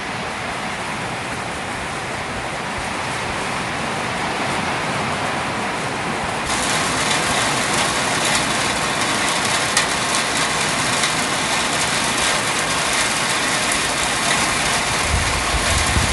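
Rain falling steadily. About six and a half seconds in it suddenly turns brighter, with a dense crackling patter of drops. A low rumble starts to build near the end.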